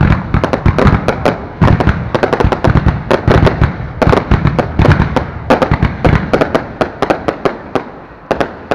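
Fireworks going off close by in a dense run of sharp cracks and bangs, several a second, thinning out and fading near the end.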